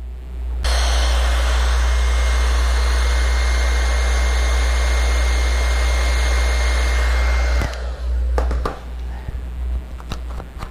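Heat gun blowing steadily with a high whine, switched off after about seven seconds with its fan winding down; it is heating the vinyl wrap so the film stretches around a bend. A few clicks and handling noises follow.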